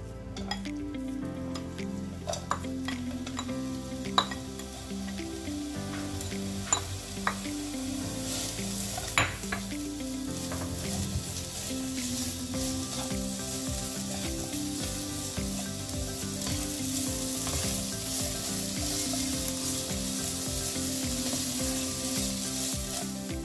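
Sliced onions sizzling as they fry in olive oil in a non-stick frying pan, stirred with a plastic slotted spatula. There are a few sharp knocks of the spatula on the pan, and the sizzle builds after several seconds as the pan heats up.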